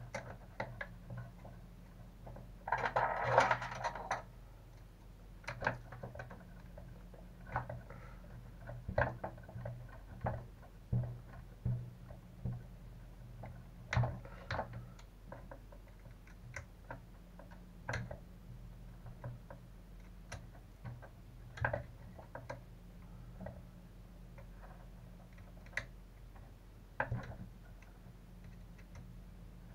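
Irregular light clicks and taps of small plastic and metal RC truck parts being handled and fitted by hand, with a denser scraping rustle lasting about a second near the start.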